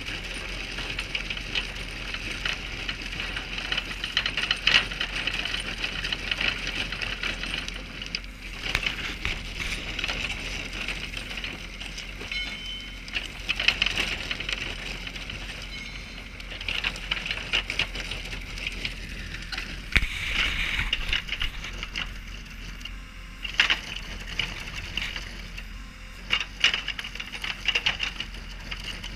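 A JCB-mounted hydraulic road milling drum cutting into asphalt: a steady grinding hiss under constant crackling and clattering of broken asphalt, with sharper knocks every few seconds.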